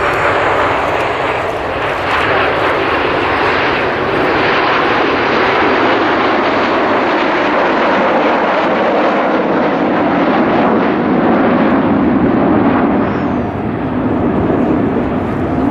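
Four Kawasaki T-4 jet trainers flying over in formation, their twin turbofan engines giving a loud, steady rush of jet noise. The sound grows deeper through the middle and dips briefly near the end.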